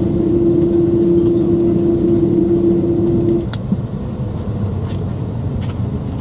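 Steady hum of an Airbus A330-300 cabin at the gate, ventilation air and machinery, with a steady tone that cuts off abruptly about halfway through, leaving a quieter rumble.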